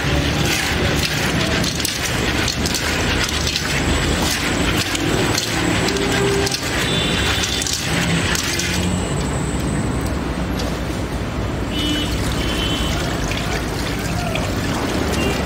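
Raisins being washed by hand in water in an aluminium pot: water sloshing and splashing with the raisins rubbing and clicking together, over a constant background clatter and hum. Near the end the water is poured off onto a concrete floor.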